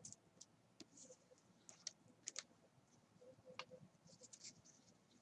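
Near silence with faint, scattered clicks and light scratching from trading cards and plastic card holders being handled, with a couple of sharper clicks a little over two seconds in and another about three and a half seconds in.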